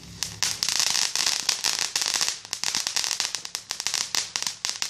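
Consumer ground firework fountain spraying sparks with dense, rapid crackling, a fast irregular spatter of small pops that starts just after the beginning.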